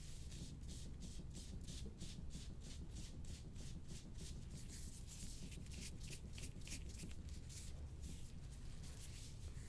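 Quick rubbing strokes over skin, about three a second, as the soft tissue of the neck is worked by hand or tool, over a low steady room hum.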